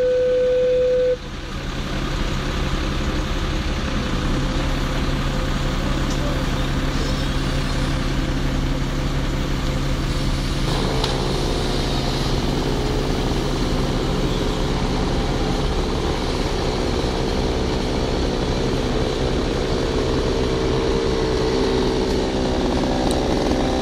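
Engine running steadily, most likely the fire engine powering its aerial platform. A steady high tone cuts off about a second in, and a second, higher engine sound joins about ten seconds in.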